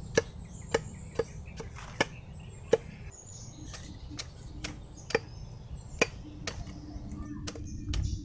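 Machete hacking at a lakatan banana sucker's corm: a run of sharp chops, about two a second for the first three seconds, then further apart. This is paring the corm clean of its outer layer and roots to prepare it for split-corm propagation.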